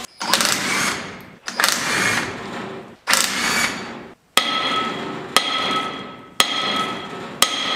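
Hammer blows on steel, about one a second. The first three are dull, and from about four seconds in each blow leaves the metal ringing with a clear tone that fades before the next.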